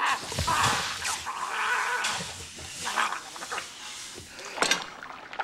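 Scalding water poured from a steaming kettle into a man's open mouth, splashing, while he gargles and groans in pain. A sudden sharp sound comes near the end.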